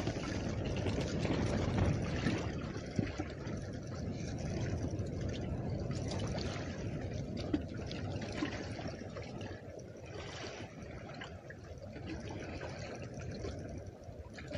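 Small waves lapping and splashing against the hull of a bass boat on choppy water, with wind rumbling on the microphone.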